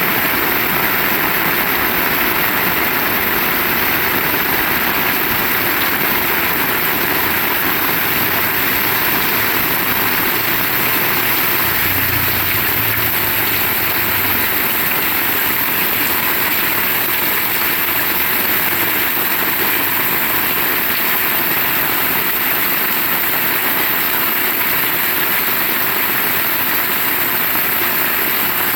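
Heavy rain falling steadily, an even, unbroken hiss of rainfall.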